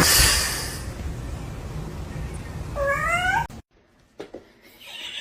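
A domestic cat meows once, about three seconds in, a single call that rises and falls in pitch, over a steady noisy hiss. The sound then cuts off abruptly.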